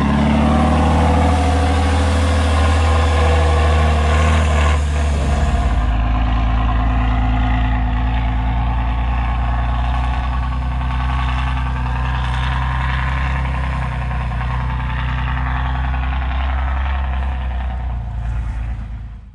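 Loud heavy engine running steadily, with a deep, even tone; about five seconds in the sound shifts and its higher hiss drops away.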